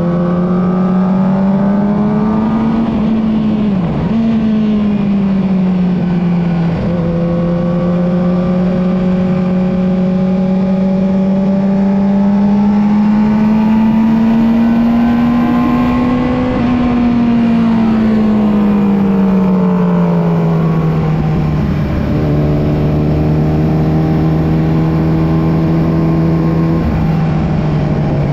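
Yamaha R6 inline-four sportbike engine pulling on gentle throttle: its pitch climbs slowly, drops sharply twice in the first seven seconds as it shifts up, sinks away between about seventeen and twenty-one seconds as it slows, then holds steady.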